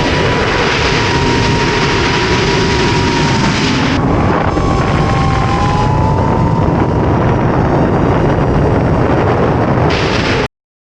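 GepRC Vapor D5 FPV quadcopter's motors and propellers whining, with wind rushing over the microphone. The whine's pitch shifts up and down with the throttle, and the sound cuts off suddenly near the end.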